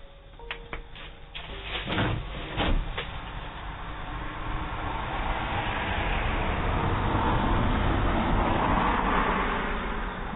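A car passing by, its tyre and engine noise swelling over several seconds and easing off near the end, heard through a doorbell camera's narrow-band microphone. A few sharp knocks come in the first three seconds.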